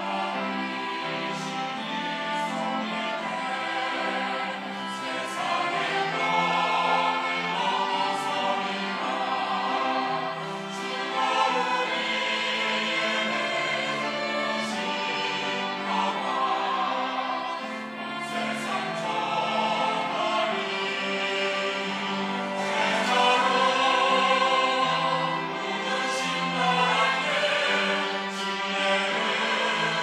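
A mixed church choir of women's and men's voices singing a sacred anthem in sustained, swelling phrases.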